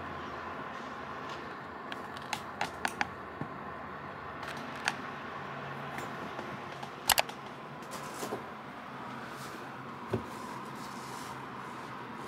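Faint steady room hiss with scattered small clicks and taps of handling on a desk: a quick run of four clicks about two seconds in, a few single ones later, and a sharper double click about seven seconds in, the loudest.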